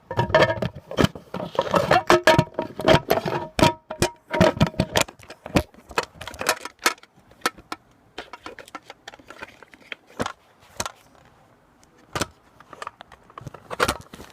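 Rapid clicks, taps and scrapes of a tool prying at an iPod's casing and internal parts. There is a ringing tone in the first few seconds, and the clicks thin out to scattered taps after about six seconds.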